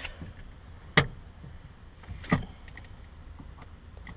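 Two sharp mechanical clicks, about a second and two and a half seconds in, from the Scion FR-S handbrake lever and its newly fitted drift button being worked to test whether the button holds the lever's ratchet released.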